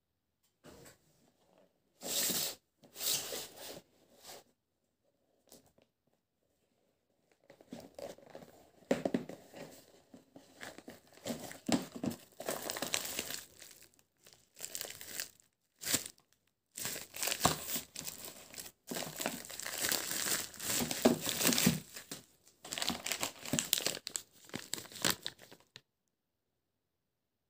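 Bubble wrap and a plastic sleeve being crinkled and torn as a knife is unwrapped from its packaging. A few short bursts come a couple of seconds in, then the crinkling runs almost without a break from about eight seconds in and stops shortly before the end.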